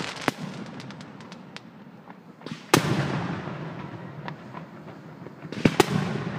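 Fireworks display: aerial shells bursting with sharp bangs, one just after the start, a loud one near three seconds in and a quick double bang near six seconds, each followed by a rumbling tail. Scattered small crackling pops come in between.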